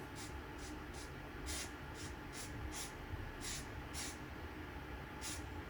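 Aerosol can of copper weld-through spray being sprayed in about a dozen short, quick hissing spurts.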